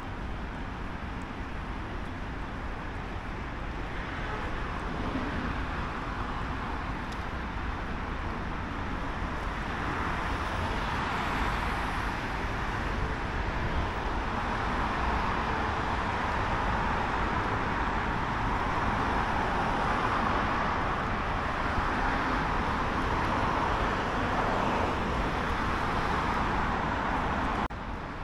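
Road traffic noise: a steady hiss of passing vehicles that grows louder through the middle and cuts off suddenly near the end.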